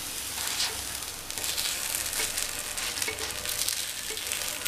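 Kuzhi paniyaram frying in oil in a nonstick paniyaram pan, with a steady sizzle, while a wooden spatula flips them over with light scrapes against the pan.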